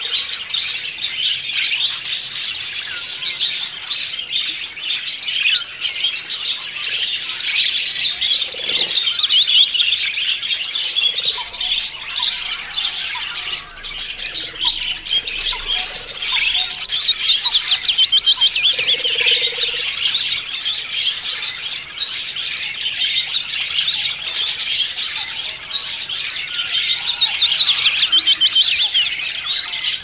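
A flock of budgerigars chattering and warbling together: many overlapping quick chirps and trills at once, unbroken throughout.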